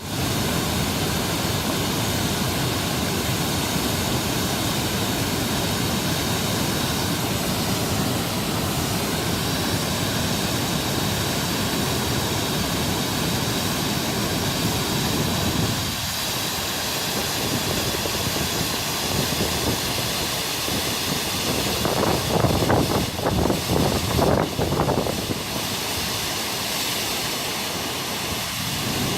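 Jägala waterfall: a steady rush of falling water, with a few louder, uneven surges about three-quarters of the way through.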